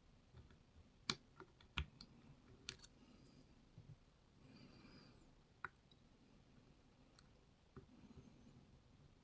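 Scattered small sharp clicks and taps of tools on a Lockwood MT5 padlock being taken apart, the loudest two a little over a second in, with a faint rustle of handling around the middle.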